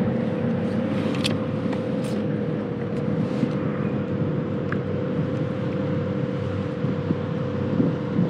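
A steady low mechanical hum with one constant mid-pitched tone running through it, and a few faint ticks.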